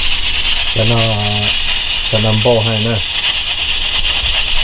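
Pressure cooker venting steam through its weighted regulator: a steady loud hiss with a fast, even pulsing as the weight rocks. This is the sign that the cooker is up to pressure.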